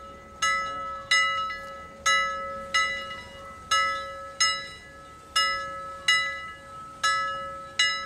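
A metal bell struck ten times in a steady rhythm of paired strikes, each stroke ringing and fading before the next.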